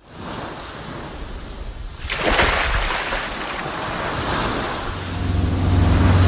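Ocean waves washing, with a big surge about two seconds in. About five seconds in, a boat engine's steady low hum sets in and keeps going.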